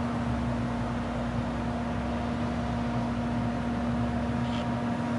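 Steady mechanical hum with one constant low tone and a noisy haze around it, unchanging throughout.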